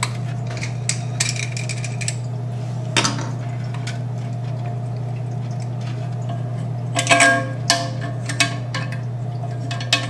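Hard plastic and metal toilet parts clicking and clinking against each other and the ceramic tank as they are handled and fitted, with a cluster of ringing clinks about seven seconds in. A steady low hum runs underneath.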